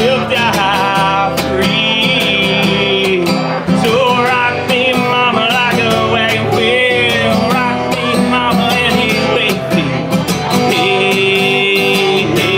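A man singing a country song, accompanying himself on a strummed acoustic guitar, with a steady strumming rhythm throughout.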